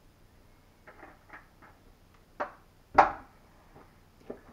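A few light knocks and clatters of kitchen items being handled at the stove, the loudest about three seconds in.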